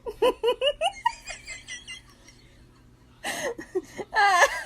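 A person laughing in quick, rapid bursts that fade away, then a short, high-pitched voice-like cry near the end.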